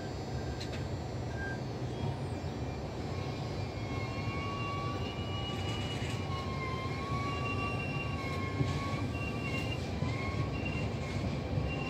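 Passenger train coaches rolling past on the rails with a steady rumble of wheels on track. From about three seconds in, a thin wavering squeal joins and comes and goes.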